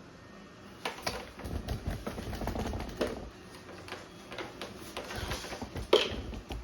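Screwdriver turning a screw into the plastic housing of a Lefant robot vacuum: irregular clicks and scrapes, with a sharper click near the end.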